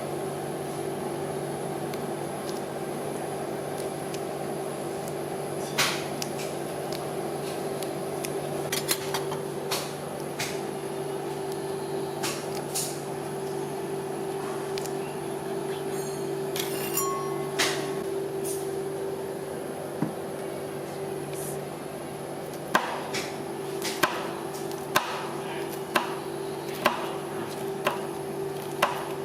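Metal spatulas chopping and tapping on a rolled-ice-cream cold plate: scattered sharp knocks, then regular strikes about once a second near the end, over a steady hum.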